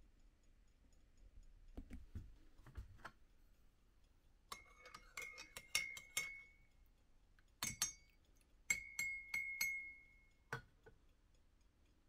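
Metal teaspoon stirring creamer into coffee in a ceramic mug, clinking against the mug's sides in two quick runs of taps, each leaving a short ringing tone. A few soft clicks come before, and one last tap near the end.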